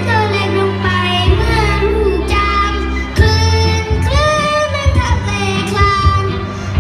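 A child singing a Thai pop song over a recorded backing track with steady low bass notes.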